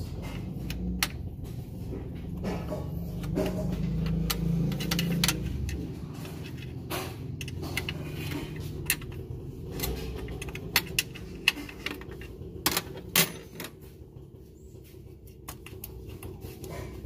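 Scattered sharp clicks and metallic taps as parts and tools are handled in an engine bay, with a quick run of louder clicks about two-thirds of the way through.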